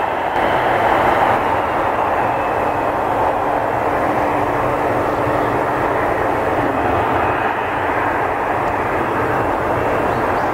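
Twin General Electric F404 turbofans of US Marine F/A-18D Hornets at low taxi power, giving a steady jet roar and whine as the jets roll along the runway.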